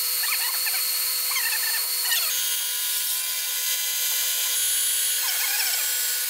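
Vertical milling machine running, its end mill cutting across the top face of a metal blank clamped in a vise: a steady machine whine under a high cutting hiss, with a few brief wavering squeals. The sound shifts abruptly about two seconds in.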